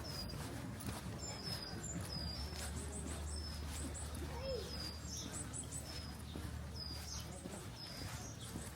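Small birds chirping, many short high calls repeated quickly over a steady low background rumble.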